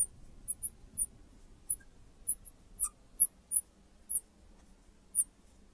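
Marker squeaking on a glass lightboard as a line of notation is written: about a dozen short, high squeaks at irregular intervals.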